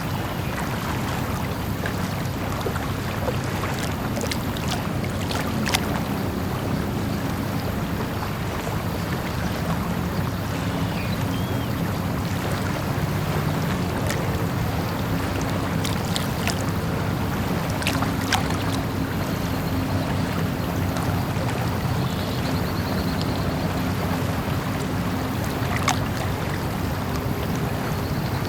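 Small harbour ambience: a steady low hum over a bed of water noise, with scattered light clicks and knocks.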